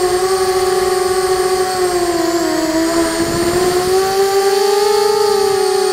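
A QAV250 racing quadcopter's brushless motors spinning DAL 5040 props in flight, heard from on board as a loud, steady whine. The pitch dips slightly about two and a half seconds in, then rises again around four to five seconds as the throttle changes.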